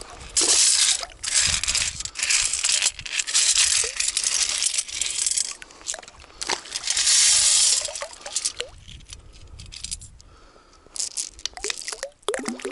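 Wet pebbles and gravel rattling in a perforated stainless-steel sand scoop as it is shaken to sift river-bottom gravel for a detector target, with water running out through the holes. It goes quieter about two-thirds through, with a few sharp clicks of stones near the end.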